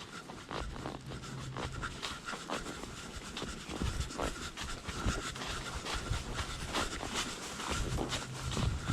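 Tennessee walking horse mare being ridden on a dirt trail: irregular hoofbeats, several a second, with the horse breathing hard.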